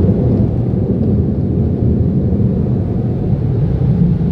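Automatic car wash tunnel equipment heard from inside the car's cabin: a steady low rumble.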